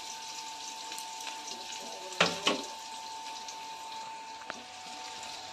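Chopped onions, ginger, green chillies and garlic sizzling in hot oil in an aluminium kadhai: a steady frying hiss with a faint constant whine under it. A metal ladle knocks against the pan twice, a little over two seconds in.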